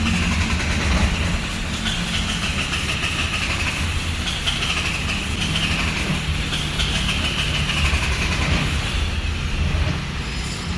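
Mitsubishi Triton's 4D56 diesel engine cranking on the starter motor without catching: a steady rhythmic low chugging with a wavering whine above it. A clogged injector is blamed for the no-start.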